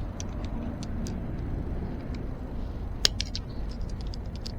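Small metallic clicks and ticks of pliers working a short cotter pin into an e-bike disc brake caliper, with one sharper click about three seconds in, over a steady low hum.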